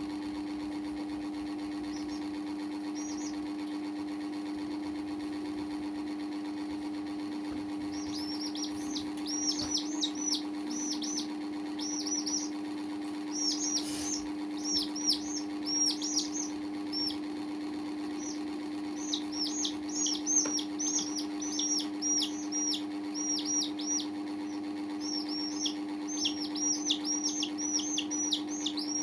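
Baby chicks peeping: short, high, falling peeps, scattered at first and then in quick runs from about eight seconds in. A steady low hum runs underneath.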